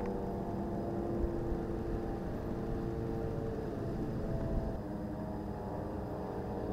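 Steady drone of an aircraft engine overhead, several tones whose pitch slowly drifts up and down.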